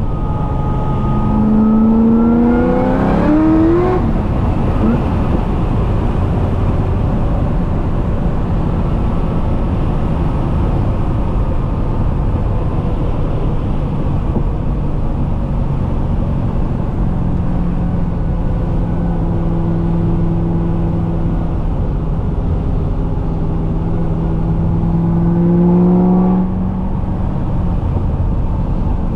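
C6 Corvette ZR1's supercharged V8 under a hard burst of acceleration, the engine note climbing quickly for a couple of seconds before easing off. It then runs steadily over constant road and tyre noise, the note slowly rising under light throttle until it drops away about 26 seconds in.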